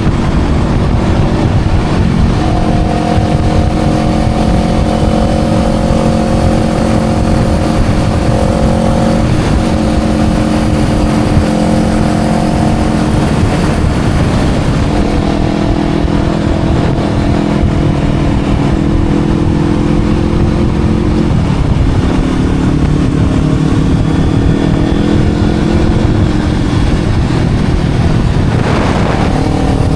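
Motorcycle engine running under way, holding steady pitches for several seconds at a time with shifts in between, a drop in pitch a little past two-thirds of the way through, and a quick rise in revs near the end.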